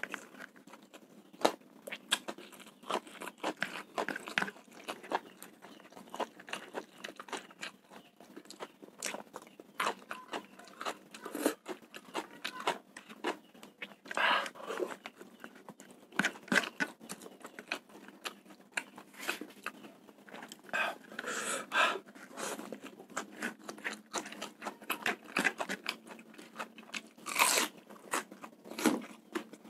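Close-miked mouth sounds of eating spicy fried rice with raw bird's eye chilies by hand: wet chewing with irregular crisp crunches, a few of them louder, scattered through.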